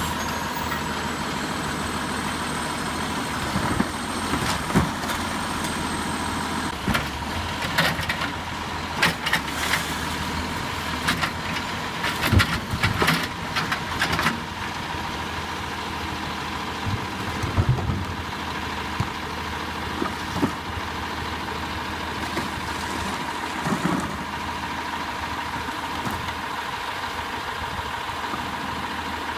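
Diesel garbage truck (Peterbilt 320 with a Heil Durapack 7000 rear-loader body) idling with a steady high tone over the engine hum. Plastic trash carts bang and knock against the truck as they are handled and emptied, most of the knocks coming close together in the middle, with a few more later.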